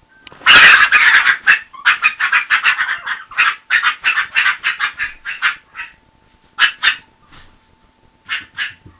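Toy fox terrier puppy barking in a fast, high-pitched string of yaps, several a second, for about five seconds, then a few more short barks in pairs near the end.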